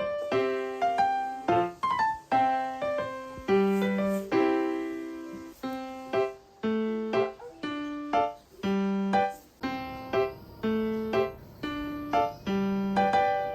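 Background piano music: a light melody of struck notes in an even, steady rhythm.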